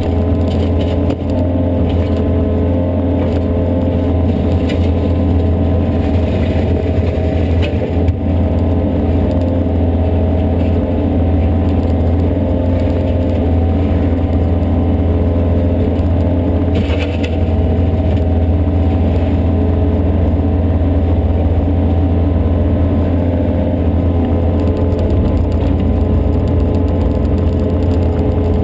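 Yanmar ViO57 mini excavator's diesel engine running steadily under working load, heard from inside the cab as a strong, even low drone with steady tones above it. A brief clatter comes about two-thirds of the way through as the bucket works.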